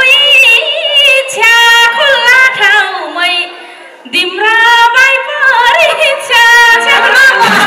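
A woman singing a Nepali Teej song into a microphone, her voice wavering with ornamented vibrato, with a brief break about three and a half seconds in before she carries on.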